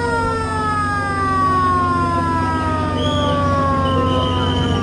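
Fire engine siren, a single held tone that slowly falls in pitch as it winds down, over the steady low running of the truck's engine.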